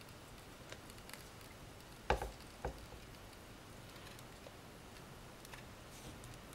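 Sardine-tin pop-pop steam boat being nudged by hand in a bowl of water: two knocks about two seconds in, half a second apart, and a few lighter clicks over a faint low background. The boat's own running is very quiet.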